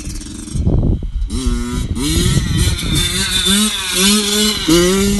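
Motorcycle engine running hard under throttle. Its pitch climbs and drops back several times as the rider shifts through the gears.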